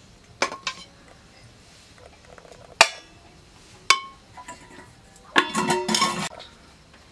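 Metal spatula clinking against a metal pot as cooked rice is served out: a few separate sharp, ringing knocks, then a quick run of rattling clatter about five and a half seconds in.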